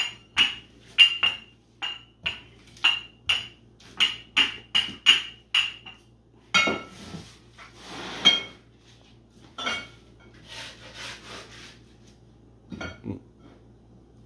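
Rolling pin rolling out dough on a plastic mat, clicking sharply two to three times a second, each click with a brief ringing. After about six seconds the clicks stop, giving way to a few rustles and knocks as the mat is lifted and the dough is turned into a glass pie plate.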